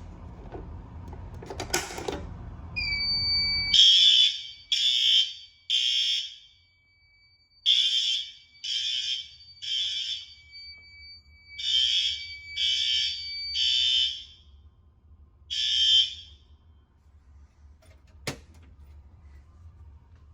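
Fire alarm horns sounding in the temporal-3 evacuation pattern: three sharp half-second blasts, a pause, and the group again, three groups in all and then one last blast. A steady high tone runs beneath the first three groups. A click comes a couple of seconds before the horns start and another a couple of seconds after they stop.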